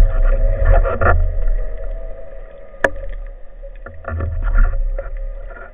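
Underwater sound picked up by a speargun-mounted camera: low rumbling water movement and handling knocks against the housing, with one sharp click about three seconds in. A faint steady hum runs underneath.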